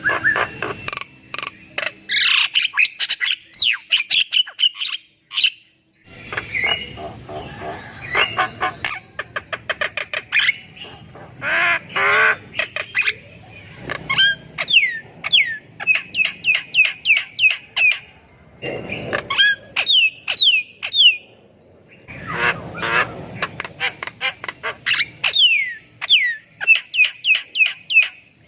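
Javan myna calling in a long, varied run: harsh squawks and chatter mixed with repeated short, sharply falling whistles and clicks, broken by brief pauses.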